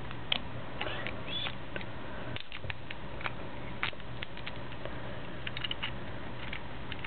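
Light clicks and scrapes of small plastic and metal spinning-top (Beyblade) parts being handled and fitted together, scattered irregularly over a faint steady hum.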